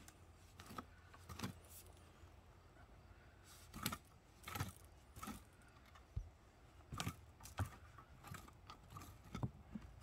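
Steel garden rake scraping and dragging through loose soil in the bottom of a trench, in short, irregular strokes, about a dozen of them.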